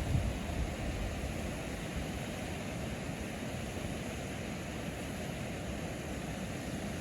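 Steady rushing noise, heaviest in the low range, with a few gusty low thumps at the very start.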